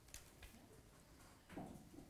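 Near silence: room tone, with a couple of faint clicks and a brief faint murmur about one and a half seconds in.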